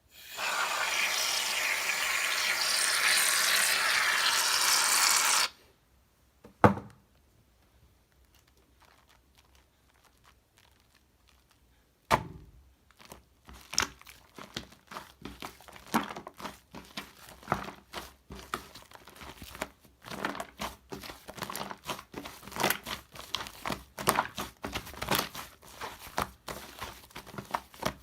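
A can of shaving foam hissing as it sprays for about five seconds, then a single knock. After a quiet pause, slime with the foam being mixed and kneaded by hand, giving off quick sticky crackling and popping clicks.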